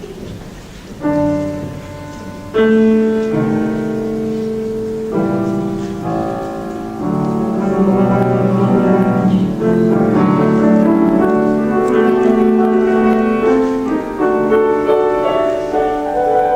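Piano playing the slow, sustained chords of an opera aria's introduction, entering about a second in and growing louder at about two and a half seconds.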